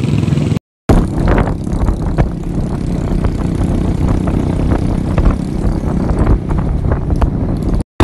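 Motorcycle engine running while riding along a rough dirt track, with heavy wind buffeting on the microphone and rattling knocks. The sound drops out briefly just under a second in and again near the end.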